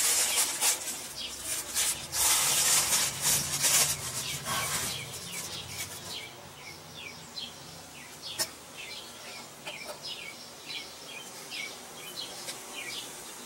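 Rustling handling noise for the first few seconds as the new A/C hose is picked up. Then a small bird chirps over and over in short falling chirps, one or two a second, with a single sharp click about eight seconds in.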